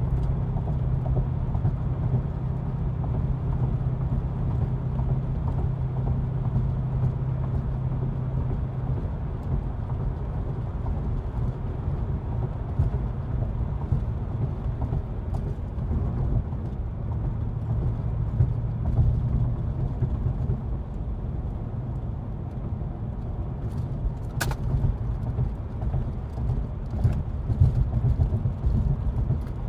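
Porsche 928's V8 engine and tyres heard from inside the cabin while driving at a steady speed: a low engine drone over road rumble. A single short sharp click sounds about 24 seconds in.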